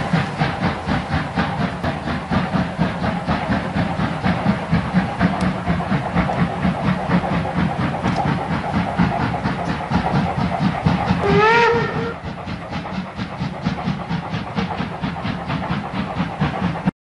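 Steam locomotive running, its exhaust chuffing in a rapid, even beat, with one short whistle blast that rises slightly in pitch about eleven and a half seconds in. The sound cuts off suddenly near the end.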